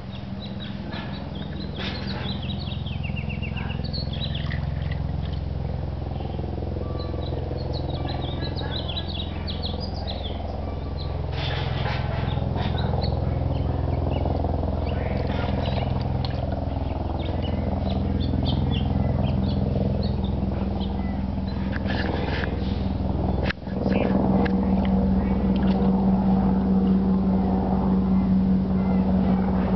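A steady motor hum with a low drone, growing gradually louder, with birds chirping over it. The sound cuts out for a moment about three-quarters of the way through, then the hum comes back louder.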